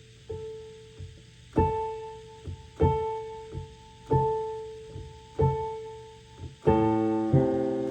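Piano playing a single note over and over, slowly and evenly about once every second and a quarter, with softer low notes between, then moving into full chords near the end.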